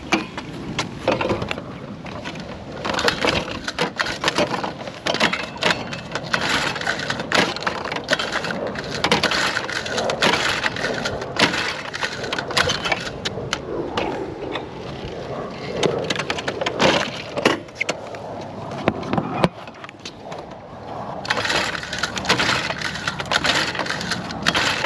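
Pocket bike's small petrol engine being pull-started over and over, the recoil starter cord rasping and rattling with each pull, without the engine settling into a steady run.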